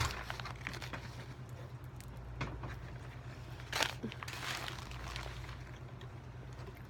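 Eating sounds: a few short bites and paper wrapper rustles, the loudest about four seconds in, over a steady low hum.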